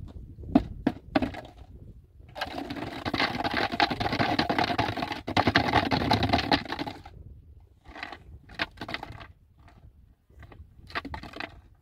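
Water poured into a large plastic bottle for about four seconds, a dense splashing gurgle. Before and after it come clicks and knocks of plastic containers being handled.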